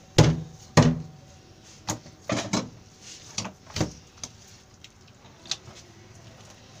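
Knife chops striking a wooden table as fish is cut up: two heavy thuds in the first second, then a run of lighter, irregular knocks.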